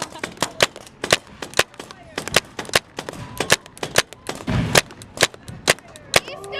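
Paintball markers firing in rapid, irregular volleys: many sharp pops, about four a second, from several shooters at once. A heavier thump comes about four and a half seconds in.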